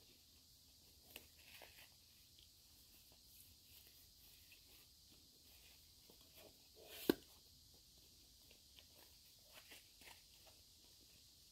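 Faint rustling and small clicks of hands rummaging in a canvas haversack, with one sharper knock about seven seconds in.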